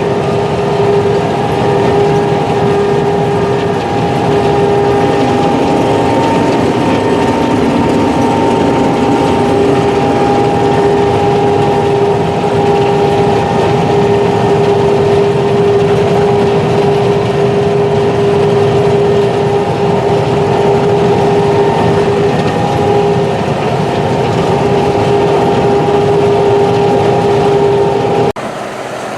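Claas Mega 204 combine harvester running under load while harvesting sunflower: a steady, loud machinery drone with a strong steady whine. It drops abruptly near the end.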